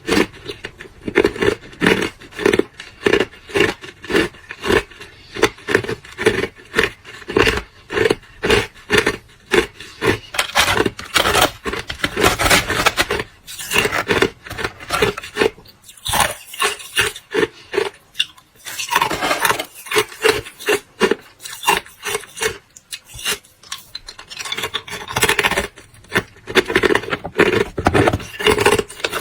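Hard clear ice being bitten and chewed close to the microphone: a long run of loud crunches in quick succession, with stretches of denser grinding.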